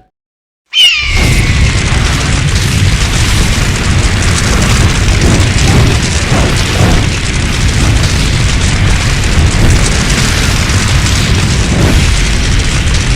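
Created creature sound effect: after a moment of silence, a short falling screech leads into a loud, steady, rumbling roar of noise that goes on without a break.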